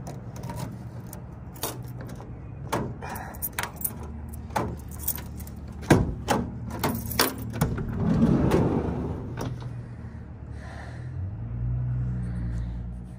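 Handling noises at a work van's side door: a run of sharp clicks and clanks, then a longer sliding rush about eight seconds in as the door opens onto the cargo area, over a steady low hum.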